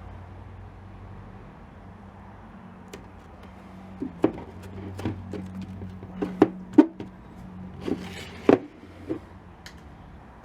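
Hands handling small items on a workbench: a run of clicks and knocks starting about four seconds in, with a brief rasp near the end, over a steady low hum.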